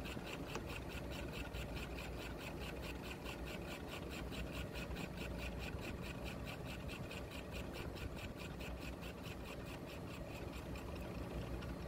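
Portable valve seat machining machine turning its cutter at about 250 RPM against the steel valve seat of a Yanmar marine diesel cylinder head, on an automatic outward cutting feed. The cutting gives an even scraping pulse about four times a second over a steady low motor hum, and stops near the end.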